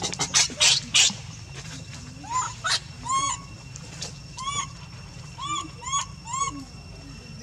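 Baby monkey calling: about seven short, high calls starting about two seconds in, each rising then falling in pitch. A few short harsh noises come in the first second.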